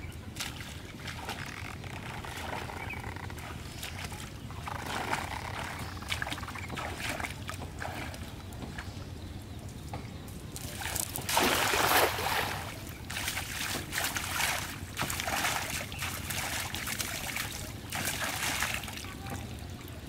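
A cast net is thrown into a shallow pond and lands on the water with a loud splash a little past the middle. Before it comes the sloshing of someone wading through shallow water, and smaller splashes and sloshes follow.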